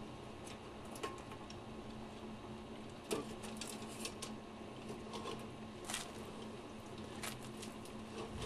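Scattered light clicks and knocks of motorcycle fork parts being handled during disassembly, the loudest about three seconds in, over a steady low hum.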